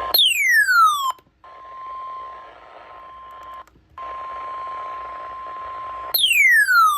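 NOAA Weather Radio warning alarm tone, a steady single tone near 1 kHz heard over receiver hiss, sounding twice for about two seconds with a short break between. About a second long near the start and again near the end, a loud electronic chirp sweeps quickly downward in pitch.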